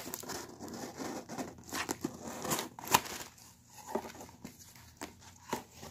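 Cardboard mailer box being worked open by hand: tape tearing and cardboard flaps scraping and crackling, with a couple of sharp snaps about halfway through.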